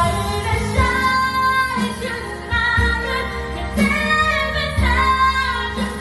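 A woman singing a melody over backing music, holding and gliding between notes.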